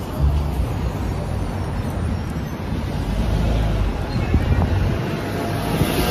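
Wind buffeting the phone's microphone in uneven low rumbles, over street traffic with a double-decker bus driving past close by.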